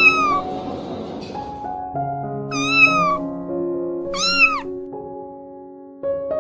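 A cat meowing three times, the last call rising and then falling in pitch, over soft background music that fades and then comes back about six seconds in.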